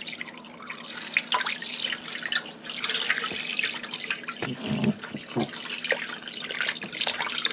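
Water poured in a steady stream onto raw pork steaks in a stainless-steel stockpot with a perforated strainer insert, splashing and filling the pot; the pour stops near the end.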